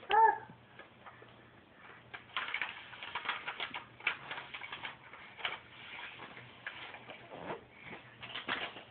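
A baby's short high squeal right at the start, then soft, irregular taps and rustles as the baby handles and clambers onto a foam Bumbo baby seat.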